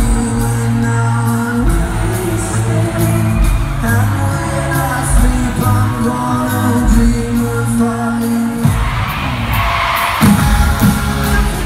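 A live pop-rock band playing with a lead singer, heard through a phone microphone in a large arena. About nine seconds in, the bass drops away for a moment and the crowd's screaming swells.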